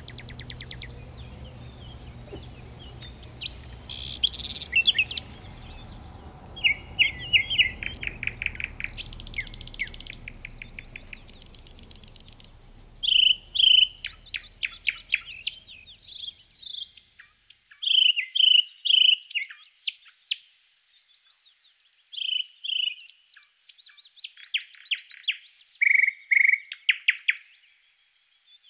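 Songbirds singing and chirping, with quick repeated trills and short calls from several birds overlapping. A low background rumble underneath fades out about halfway through, leaving only the birdsong.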